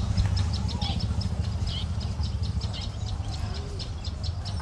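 Birds chirping in many short, quick notes, several a second, over a steady low rumble.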